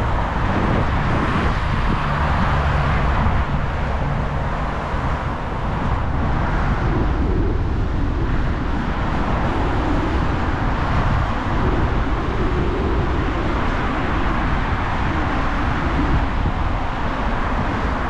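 Steady city road traffic noise, heard from a moving bicycle with wind rumbling on the microphone.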